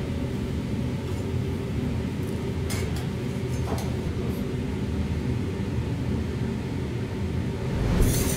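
Steady low mechanical hum with a few faint clinks of a metal fork against a stone plate. Near the end a louder hiss sets in as the steel teppan griddle comes back into shot.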